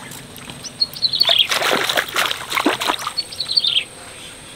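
A hooked fish thrashing and splashing at the water's surface for about three seconds, starting about a second in. A bird repeats a short, falling call a few times.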